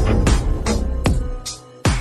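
Electronic background music with a steady drum-machine beat and heavy bass, dropping out briefly near the end.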